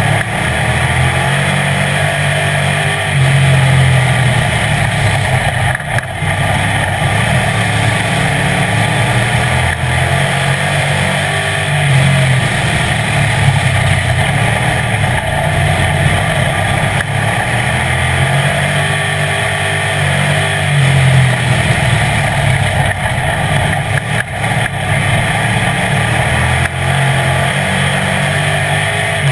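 A street stock race car's engine, heard from inside the car, running loud throughout. Its pitch rises and falls in a repeating cycle about every eight or nine seconds, over a steady hiss.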